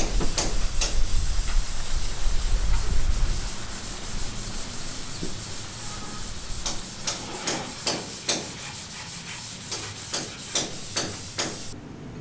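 Repeated rubbing or scraping strokes against a hard surface, a few a second, over a low rumble during the first few seconds. The sound changes abruptly near the end.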